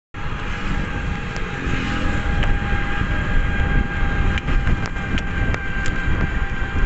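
Electric bike on the move: wind rumble on the microphone and road noise, with a steady thin whine and a few light clicks or rattles.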